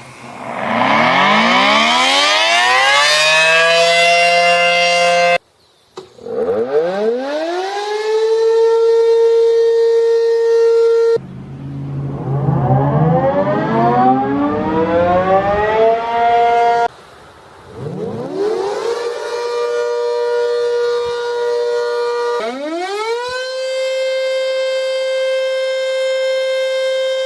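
A run of about five outdoor tornado warning siren recordings cut back to back. Each siren winds up from a low pitch, rising to a steady wailing chord, and then cuts off abruptly as the next one starts.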